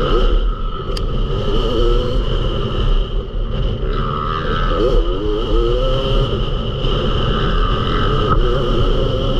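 Yamaha YZ250 two-stroke motocross engine revving up and down under hard throttle, climbing in pitch in several quick rises about halfway through.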